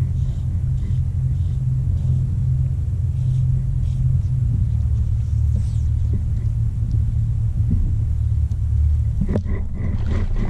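Steady low rumble from an old GoPro's microphone, running under everything. About nine seconds in, a run of sharper, quick sounds starts over it.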